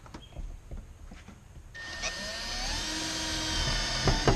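Milwaukee cordless drill starting up about two seconds in, its motor whine rising in pitch and then running steady while driving a screw into the carpeted casting deck. A few small handling clicks come before it.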